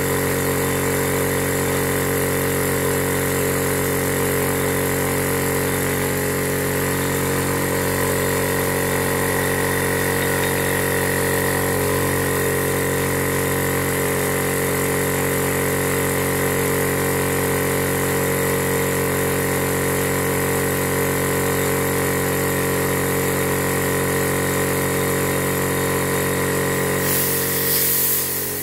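Electric high-pressure air compressor running steadily with an even hum, pressurising a resealed valve to test it for leaks. It ends with a short hiss of air.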